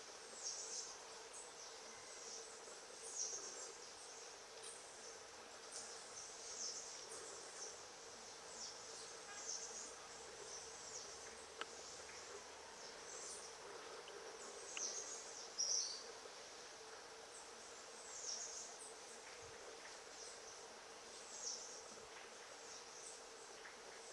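Background wildlife ambience: short high-pitched chirps, many falling in pitch, repeating irregularly about once a second, over a steady faint hum.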